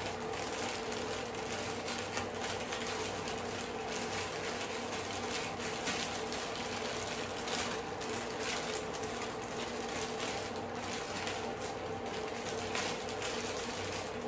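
A pot of chicken broth simmering on the stove, with a steady bubbling crackle over a low, even hum.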